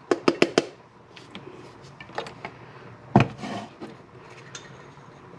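A quick run of sharp taps, then scattered light clicks and one loud knock about three seconds in: the coffee grinder being tapped and handled to knock out the ground gumball powder.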